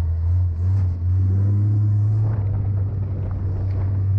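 Custom off-road buggy's Honda engine running steadily under way on a dirt track, a deep drone that edges up in pitch about a second in. Scattered knocks and rattles from the chassis over the rough ground join in from about halfway.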